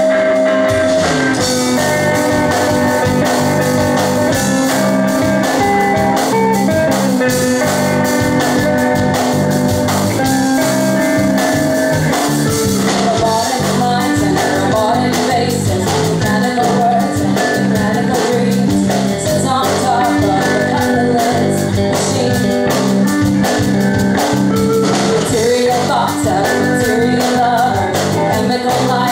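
A live rock band playing: electric guitar, bass guitar, keyboard and drum kit, with the drums' steady beat coming in about a second in. A woman's lead vocal joins about halfway through.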